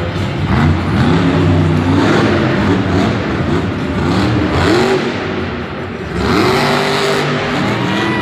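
Monster truck's supercharged V8 engine revving hard again and again, about six times, each rev a quick rise in pitch.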